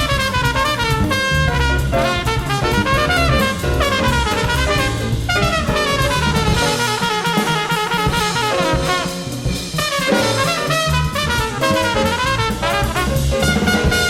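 Live small-group jazz from an FM broadcast taped onto cassette: a fast melodic solo runs over bass and drum kit without a break.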